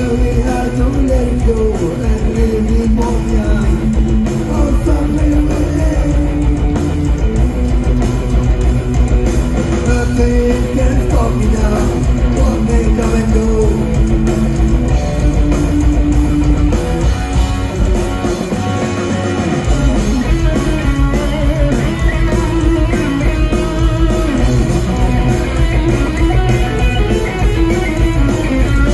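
Live rock band playing: electric guitars carry a melodic line over bass and drums, with the low end dropping out for about a second and a half past the middle.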